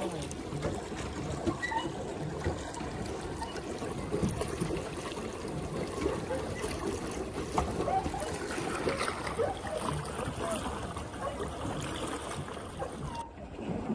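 Water churning and splashing around a pedal boat's paddle wheel as the boat is pedalled along. The sound breaks off abruptly near the end.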